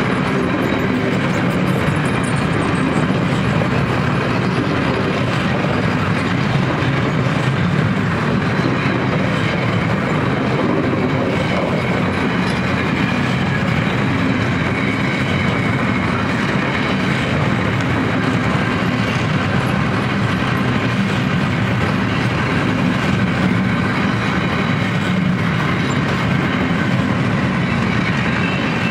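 Freight train's covered wagons rolling past: a steady, loud rumble of steel wheels on the rails.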